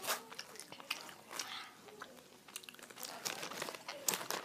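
A child chewing Sour Patch gummy candy close to the microphone: irregular wet mouth clicks, with a plastic candy bag crinkling now and then.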